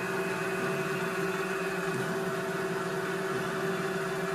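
Mini metal lathe running at a steady speed under its retrofitted sewing-machine servo motor: an even mechanical hum with a steady whine.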